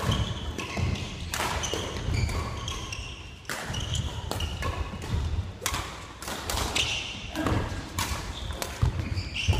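Badminton doubles rally: sharp cracks of rackets striking the shuttlecock, with thuds of footsteps and short high shoe squeaks on the wooden gym floor.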